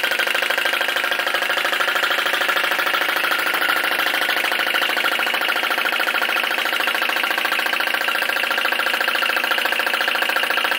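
Model flame licker (vacuum) engine running fast and steady, driving a small belted generator: a rapid, even rhythm of strokes.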